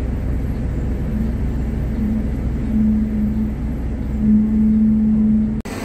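Road vehicle cabin noise heard from inside: a steady low engine and road rumble, with a steady mid-pitched hum that comes in twice. The sound changes abruptly just before the end.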